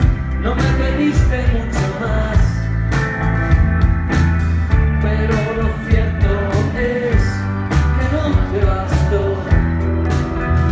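Live rock band playing: electric guitar, bass and drums, with a singer's voice over them.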